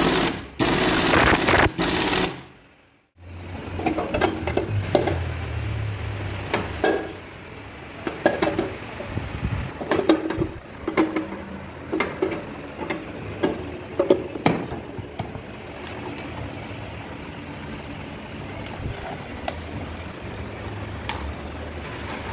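Impact wrench running on the nut of a Honda Activa's clutch outer for about two seconds, with a brief break half a second in, then stopping. After a short silence come scattered metal clinks and taps of tools and parts over a low hum.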